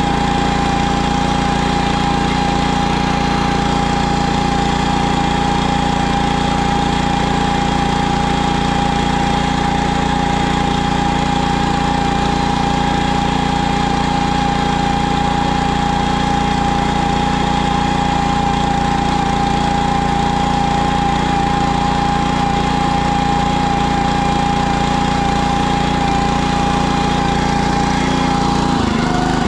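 Engine of a PermaGreen ride-on spreader-sprayer running steadily as it drives across the lawn, with a steady high whine over the engine note. The note shifts just before the end.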